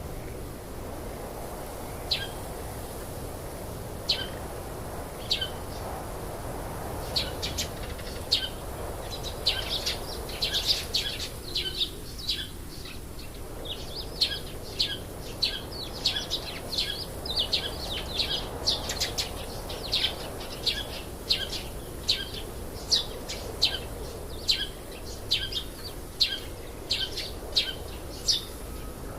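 Small birds chirping: short, high chirps, a few scattered ones at first, then many in quick succession from about a quarter of the way in, over a steady low background noise.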